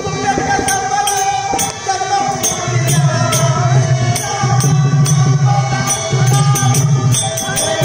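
Folk-theatre music: a held melodic line over a drum that starts a steady beat about three seconds in, with sharp jingling strikes throughout.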